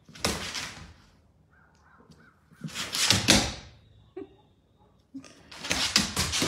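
A small puppy barking in three harsh bursts of about a second each, the last starting about five seconds in, with a few faint yips in between, as it stands up to a much larger dog.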